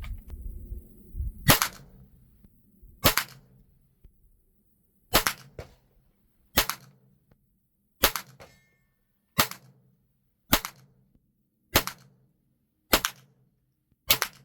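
.22LR rifle firing Federal AutoMatch rounds: ten single shots, about one every one and a half seconds, each a sharp crack with a short tail.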